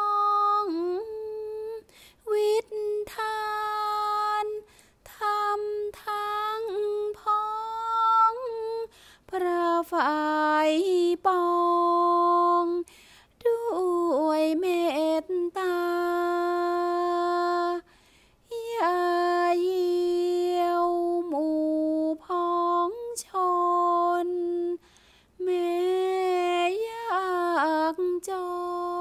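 Solo voice chanting Thai sepha (khap sepha) recitation of verse, unaccompanied, in long drawn-out held notes with wavering pitch and short pauses between phrases.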